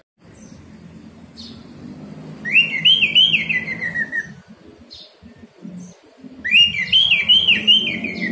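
Orange-headed thrush singing: two short phrases of quick rising-and-falling whistled notes that slide downward at the end, about four seconds apart, with a few brief high chirps between them over a low background rumble.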